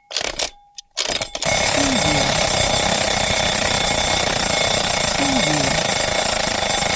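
A clock ticking with a few sharp ticks, then about a second and a half in an alarm clock starts ringing loudly and keeps ringing without a break.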